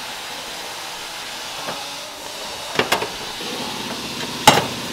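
Steady hiss with sharp metallic clicks of a hand tool striking sheet metal, a few about three seconds in and a louder one near the end.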